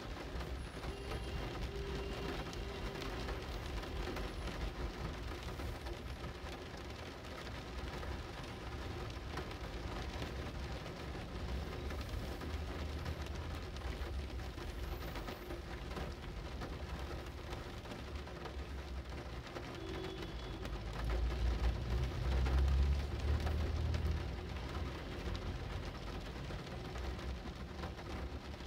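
Steady rain falling. A low rumble swells for a few seconds about two-thirds of the way through.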